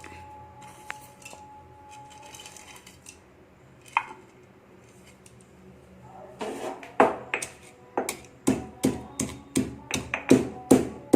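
Pestle pounding cloves, peppercorns, cardamom, ginger and tulasi leaves in a mortar. A few light knocks at first, then from about six seconds in a steady run of loud strokes, roughly two to three a second, coarsely crushing the mix.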